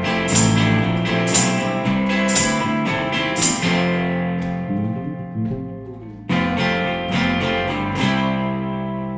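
Closing bars of an indie rock song on guitar and bass, with a tambourine hit about once a second that stops about four seconds in as the music fades. A strummed guitar chord breaks in sharply midway, and a final chord near the end is left to ring out.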